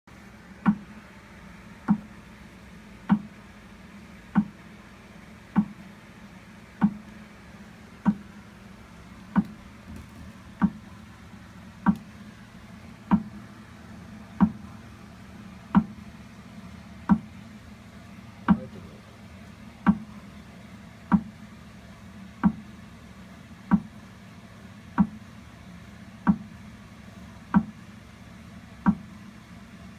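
Alinco AFB6215 exercise bike knocking with a dull clunk once per pedal stroke, about one every second and a quarter, evenly, over a low steady hum. The owner says the clunking starts after about ten minutes of pedalling and blames heat.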